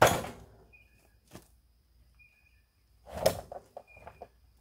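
Freshly sawn wooden boards being handled on a portable sawmill's log bed: two loud wooden thuds with a brief scrape, about three seconds apart, followed by a few lighter knocks.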